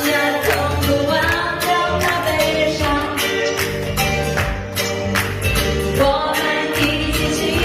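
A singer performing a song with instrumental accompaniment and a steady percussive beat.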